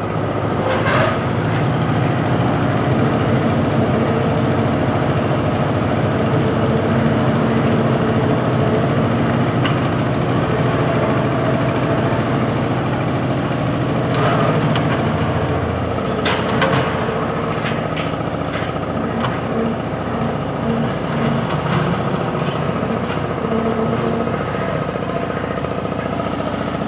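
Ladder lift hoist at a construction site, its motor running steadily with a few sharp metal clanks; the low hum drops away about halfway through.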